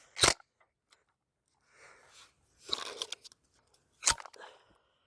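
A 12-gauge Mossberg pump shotgun fires one sharp shot about a quarter second in. Around three seconds in comes a rattle of clicks as the pump is worked, then a sharp click about a second later.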